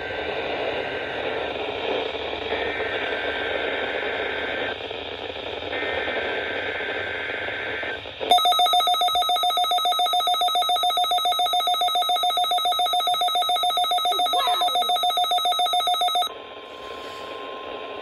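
NOAA Weather Radio Required Weekly Test coming through a Midland weather alert radio. First come three bursts of the SAME digital header, a warbling data squeal over radio static. Then the radio's own alert sounds as a loud, rapidly pulsing beep for about eight seconds, followed by a brief steady tone.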